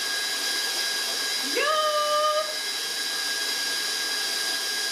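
Electric tilt-head stand mixer running steadily, its motor giving a hiss with a thin high whine as it whips pumpkin pie filling in a steel bowl. About a second and a half in, a brief high note slides up and holds for under a second over it.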